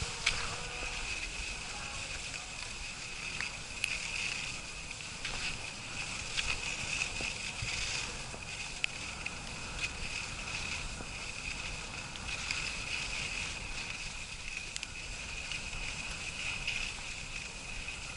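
Skis sliding downhill over snow, a continuous hiss with a few light clicks.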